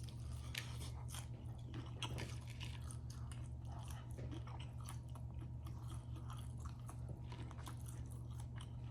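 A person chewing crispy fried food, with many small scattered crunches and clicks over a low steady hum.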